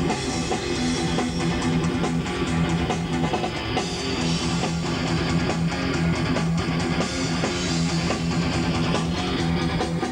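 Heavy metal band playing, with electric guitar and bass to the fore and a steady run of sharp hits.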